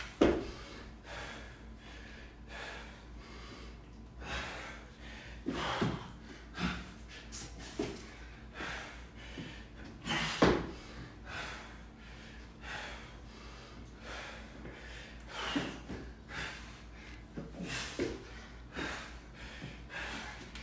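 A man breathing hard in gasps and snorts from the exertion of repeated bar-facing burpees. Every few seconds there is a loud thud as he drops to the mat or lands a jump over the barbell.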